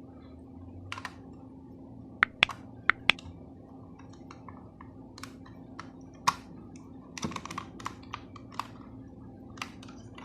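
Irregular sharp clicks and taps over a steady low hum: four loud clicks in quick succession about two seconds in, then a scattered cluster of lighter clicks around seven to eight seconds.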